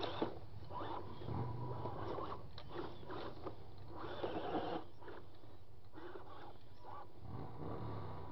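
Small electric RC trail crawler climbing over a pile of loose wooden boards. Its motor and gears hum, rising and falling in pitch twice as the throttle is worked. Scattered clicks and knocks come from the tyres and chassis on the wood, sharpest just after the start, with a cluster about four seconds in.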